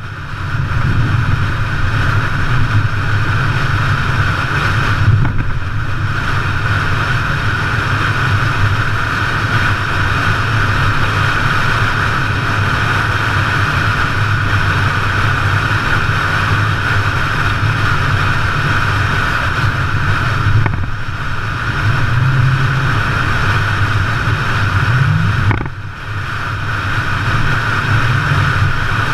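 Vehicle driving on a dirt road: engine rumble with steady road and drivetrain noise. The level dips briefly a few times, and the engine revs up once near the end.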